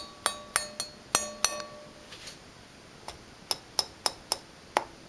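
Taps on the Canarm CP48 ceiling fan's metal canopies, a quick run of sharp clinks. The first half dozen ring briefly with a clear pitch. After a pause of a second or so, five or six shorter, thinner taps follow. The clinks show the canopies are metal, not plastic.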